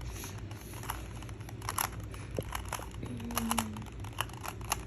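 Plastic twisty puzzle cube being turned by hand, its pieces clicking and rattling in scattered short clicks as it is solved.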